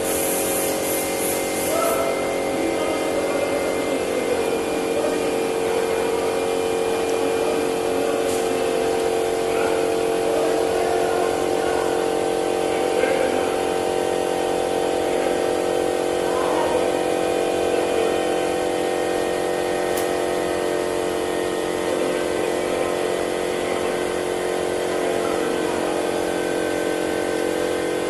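Steady machine hum made of several held tones that do not change, with faint voices now and then.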